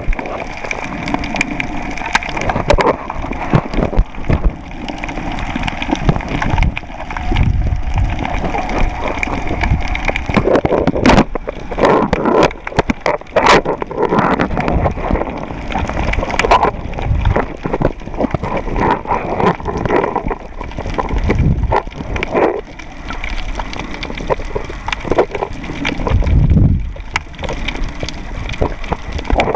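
Underwater water noise picked up by a camera in the sea: muffled sloshing and gurgling with repeated low surges and scattered sharp clicks.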